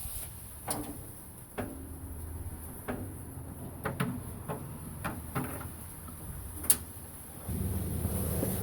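Scattered metal clinks and knocks from tools and parts during disassembly of a pickup's front end, about ten in all, a few ringing briefly. A steady low rumble starts near the end.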